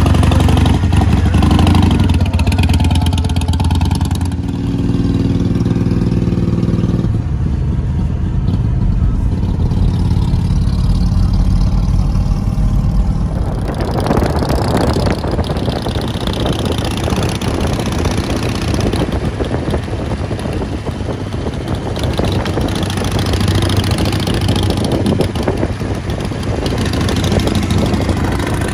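Harley-Davidson Iron 883's air-cooled V-twin engine running and pulling away, its deep engine note strongest in the first seconds. About halfway through, the sound changes to the steady road and wind rush of a moving car keeping pace with the motorcycle.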